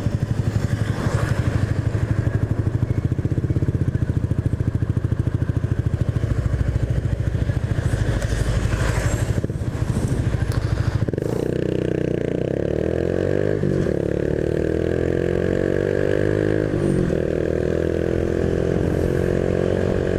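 Honda Biz 125's single-cylinder four-stroke engine running with the bike under way, heard up close as a rapid pulsing beat. About halfway through, the note turns smoother and its pitch climbs steadily as the bike accelerates, dipping briefly twice.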